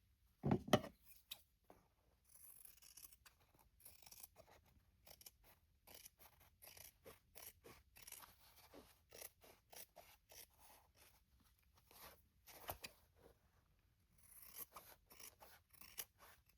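Scissors snipping through fabric to trim it to the edges, a long run of quick cuts. A single knock sounds about half a second in.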